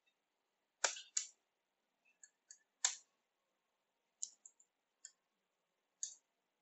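Computer keyboard typing: about ten sparse, irregular key clicks, a few louder than the rest.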